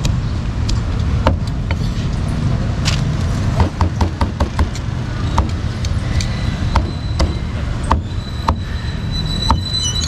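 Cleaver chopping meat on a chopping block, in irregular sharp strokes, about one to three a second, over the steady rumble of street traffic. A thin high whine joins in over the second half.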